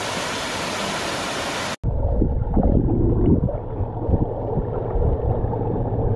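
Waterfall pouring into a pool, a steady hiss. About two seconds in it cuts abruptly to the sound heard underwater: a muffled low rush with irregular bubbling and sloshing from a swimmer.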